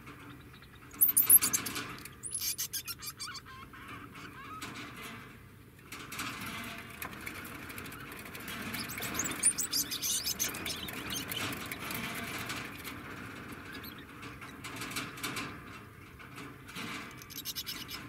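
Degu chirping and squeaking in groups of rapid, high-pitched calls. The loudest groups come about a second in and again about nine to twelve seconds in.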